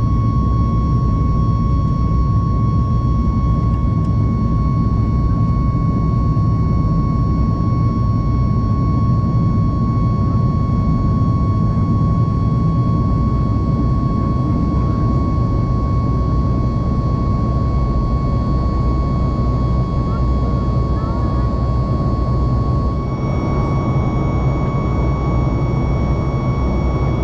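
Inside the cabin of a Boeing 737 MAX 9 in flight, by the wing: steady loud rush of airflow and engine noise from its CFM LEAP-1B turbofan. A steady high whine sits on top, with fainter higher tones. A few seconds before the end the hiss gets brighter.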